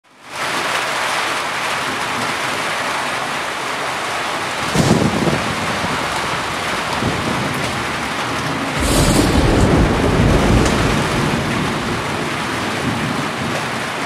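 Heavy rain falling in a steady downpour, with a short low rumble of thunder nearly five seconds in and a longer rumble from about nine to eleven seconds in.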